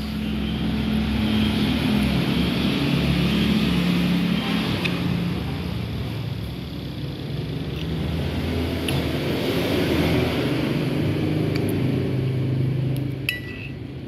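Road traffic going by: engine noise swells and eases twice over a continuous low rumble. A few light clicks are heard over it.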